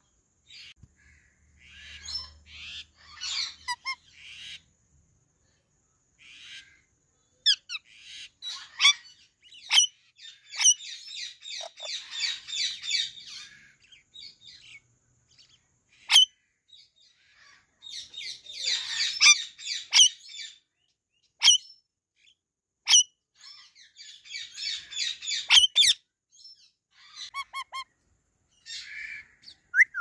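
Pet Indian ringneck and Alexandrine parakeets chattering in high-pitched bursts, broken by sharp single calls, with three longer spells of dense chatter in the middle and later part.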